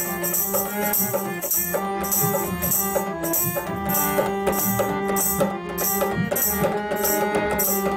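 Instrumental interlude of a Hindi devotional song: sustained melodic tones over a steady jingling percussion beat, about two beats a second.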